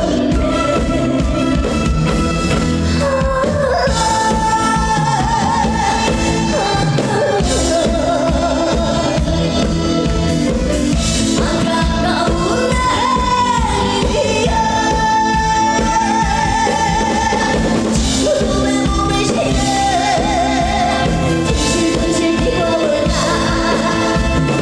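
A woman singing a Korean trot song live through a PA, over amplified backing music with a steady beat.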